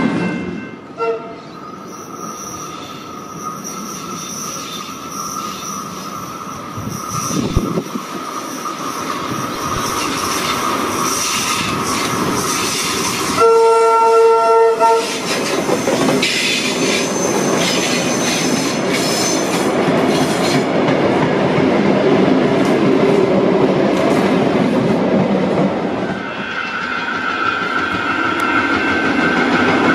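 Heritage Tait electric suburban train running along the track, with wheel and rail noise. Its horn sounds briefly about a second in, and gives a longer blast of about a second and a half about halfway through.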